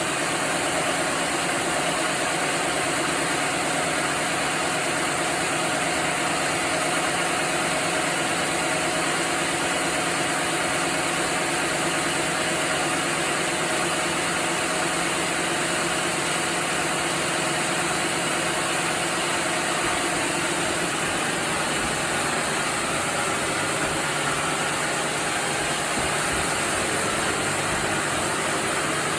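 Sawmill machinery running steadily: a constant mechanical hum and hiss with a faint steady tone, no distinct cuts or impacts.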